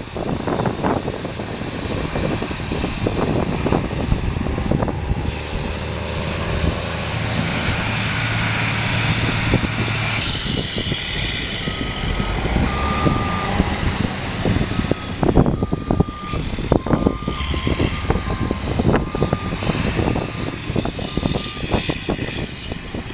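Snow-clearing tractor engine running, then its reversing alarm beeping repeatedly from about halfway on, under heavy wind buffeting the microphone.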